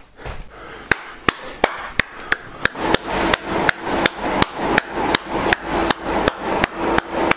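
Steady hand clapping, about three claps a second, starting about a second in. Under it a blower's whir builds up from a few seconds in as an inflatable tube figure fills with air.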